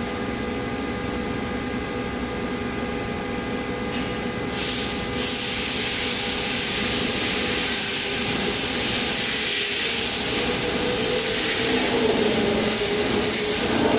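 Omax 60120 CNC waterjet cutter running: a steady machine hum with a few steady whine tones, then about four and a half seconds in a loud steady hiss starts as the high-pressure jet comes on and cuts.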